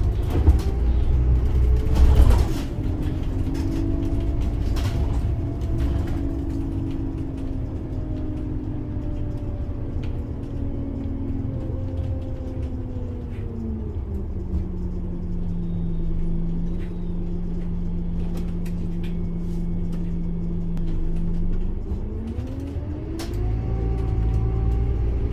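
Biodiesel engine of a three-axle Scania OmniLink city bus heard from on board: running with its pitch slowly falling as the bus slows, with a loud thump about two seconds in. Past the middle it drops to a steady idle for about seven seconds, then the pitch climbs again as the bus accelerates away near the end, with small rattles throughout.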